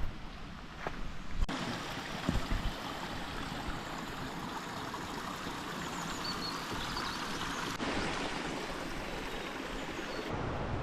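Steady rush of water from a waterfall and its stream, after a few footsteps in the first second or so.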